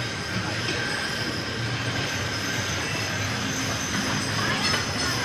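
A team of Belgian draft horses pulling a wooden show wagon past at a trot: a steady rumble of rolling wagon wheels mixed with the rattle of harness and hitch hardware.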